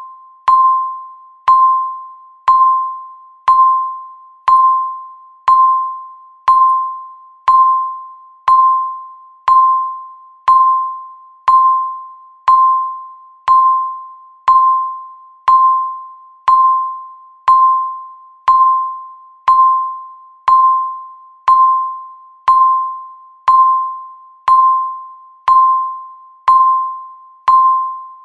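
Countdown timer beeping once a second: a single bell-like electronic tone that strikes sharply and fades away before the next, evenly spaced all through.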